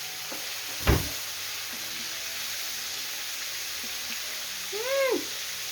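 Breaded chicken strips deep-frying in hot oil, a steady sizzle. A sharp knock about a second in and a brief rising-then-falling hummed note near the end.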